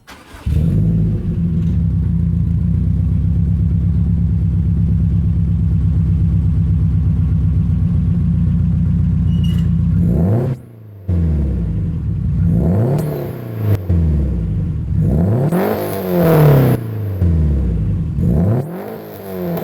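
2004 Subaru WRX STi's turbocharged flat-four engine breathing through an aftermarket exhaust, idling steadily with a pulsing note. After a short break about ten seconds in, it is revved three times, each rev rising and falling back.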